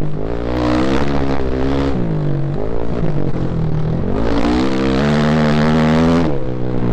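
Engine of a Honda off-road race machine, heard from onboard, revving hard and easing off again and again as it is ridden through tight trees. The pitch climbs and falls about three times, holding steady for about a second near the end before dropping.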